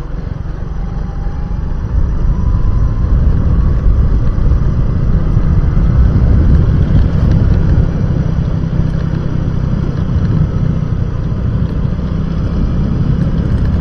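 Motorcycle riding along a road: the engine running under a heavy low rumble, which gets louder about two seconds in.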